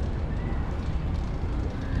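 City street traffic noise with a steady low rumble, likely wind on the microphone, and faint short high tones over it.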